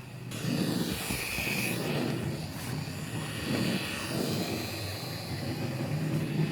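Fleischmann HO-scale BR80 model steam locomotive running along the track: the small electric motor and gearing whir steadily, with the wheels rumbling on the rails. The sound steps up just after the start.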